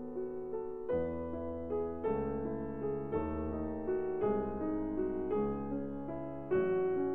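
Slow, gentle piano music, a new note or chord starting about once a second.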